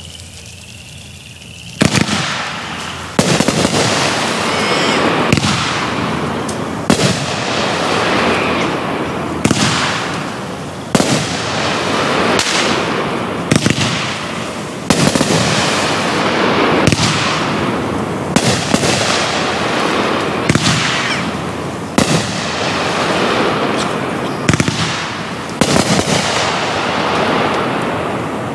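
Happy Family Sabertooth 20-shot 500g firework cake firing, starting about two seconds in: a string of sharp bangs roughly one every one to two seconds, each trailing off in a long fading rush of noise.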